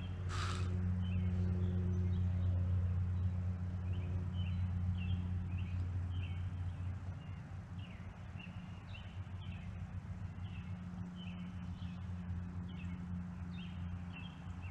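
A small bird chirping over and over, short high notes about once or twice a second, over a steady low hum. A brief scratchy noise comes near the start.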